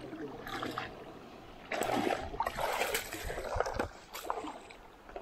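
Splashing and sloshing in shallow water, loudest for about two seconds in the middle, with a few sharp clicks.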